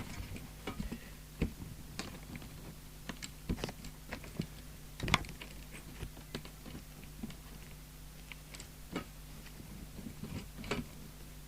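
Scattered light clicks and knocks of a CB radio set and bench items being handled, the loudest about five seconds in, over a faint steady low hum.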